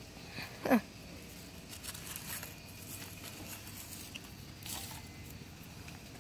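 Light clicks and rustling of hands handling parts on a lawn tractor engine, with one short, loud sound falling steeply in pitch less than a second in.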